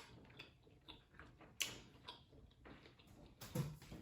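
Close-up eating sounds from a seafood boil mukbang: quiet chewing with a few sharp clicks and smacks, three of them louder, at the start, past halfway and near the end.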